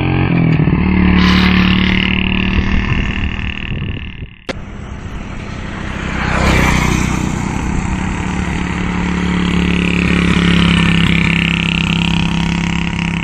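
Motorcycle engine running steadily, swelling louder a few times, with a brief dropout and click about four and a half seconds in.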